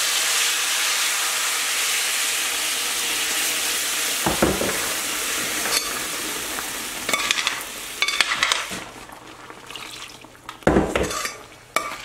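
Salsa of toasted tomatoes and chilies poured into a hot pan of frying pork chops, hissing and sizzling loudly at once, then dying down after about eight seconds. A utensil knocks against the pan twice, about four seconds in and near the end.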